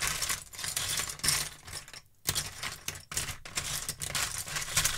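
Small plastic toys and Lego bricks clattering and rattling against each other as a hand rummages through them in a plastic tub, in irregular bursts of clicks with a short pause about two seconds in.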